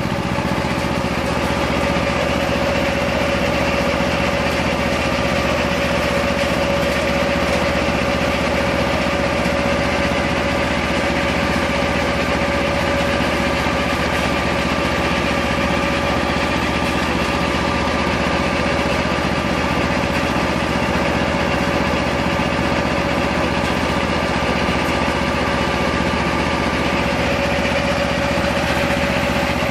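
Hazelnut harvesting machine's engine running steadily at an even speed, with a steady whine above the engine noise.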